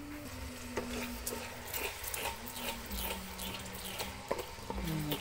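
A spoon stirring a thick, bubbling brown-sugar and coconut-milk mixture for biko in a pot, scraping and clicking against the pot's sides and bottom many times.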